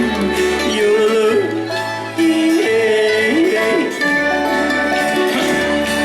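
Bluegrass band playing with acoustic string instruments, a plucked bass line underneath and a smooth, gliding melody line on top.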